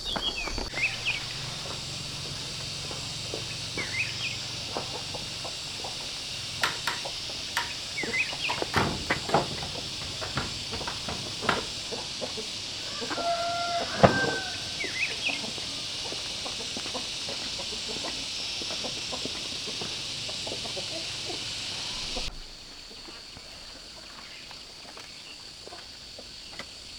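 Chickens clucking, with one longer held call from a hen or rooster about halfway through, over a steady high hiss that drops away suddenly with about five seconds to go.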